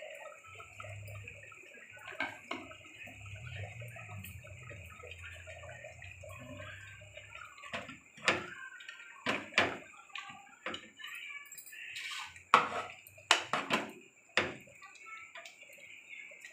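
Ground coconut paste being poured into a pot of simmering chickpea kurma and stirred in, with a spoon knocking and scraping against the pot several times in the second half.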